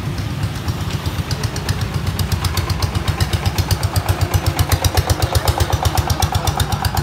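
Single-cylinder diesel engine of a small tractor-truck running past, with a steady thudding beat of about eight to nine pulses a second. It grows louder from about three seconds in and eases off near the end.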